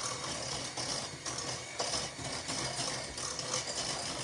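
Electric hand mixer beating cake batter in a bowl, running steadily.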